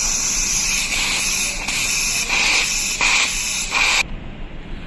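Pressurised refrigerant gas hissing out of the 2-way service valve of an inverter AC's outdoor unit during a blockage check. It cuts off suddenly about four seconds in.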